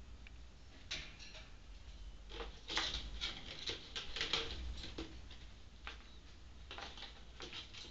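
Goffin's cockatoo picking and tearing at a frayed fibre-and-rope toy with her beak: irregular dry crackles and clicks. They come thickest from about two and a half to four and a half seconds in, and again near the end.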